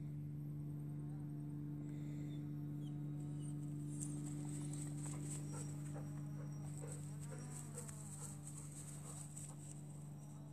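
Sheep bleating, a cluster of calls from about four seconds in, over a steady low hum.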